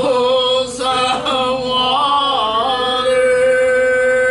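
Slow gospel hymn singing, the word "troublesome" drawn out over long notes, with a long steady held note in the second half.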